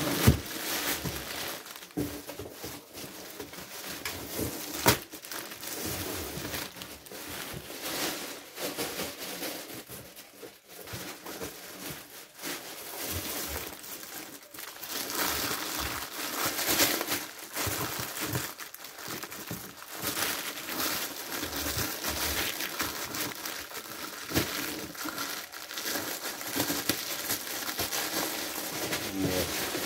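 Clear plastic wrapping film crinkling and rustling as it is handled and pulled off a box, in irregular surges, with a couple of sharp snaps near the start and about five seconds in.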